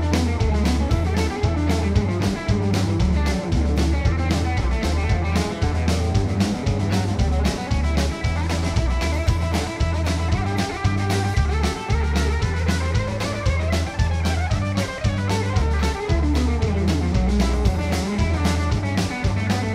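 Live band playing an instrumental section without vocals: fiddle and electric guitar lines over bass guitar and a steady drum-kit beat.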